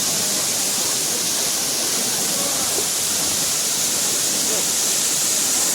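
Waterfall rushing: a loud, steady, even hiss of falling water.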